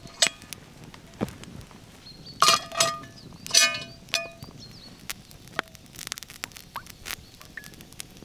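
Cast-iron Dutch oven set down on an iron stand over a wood fire: a cluster of loud metal clanks with brief ringing about two and a half to four seconds in. Sharp crackles from the burning logs pop now and then throughout.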